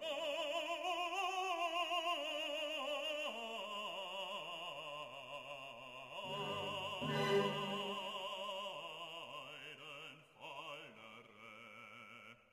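Background music: a voice singing long held notes in an operatic style, with a wide vibrato, growing weaker near the end.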